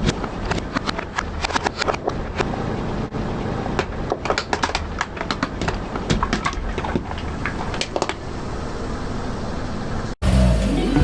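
Car tyres rolling over brittle objects and crushing them: many sharp cracks and crunches over a steady low rumble from the car, thinning out after about eight seconds. About ten seconds in, the sound cuts abruptly to music.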